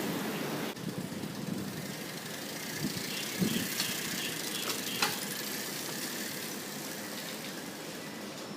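Bicycle ridden fast with a homemade noisemaker fitted against its wheel, making a steady noise like an old motorbike's engine, with a few sharp knocks around three and five seconds in.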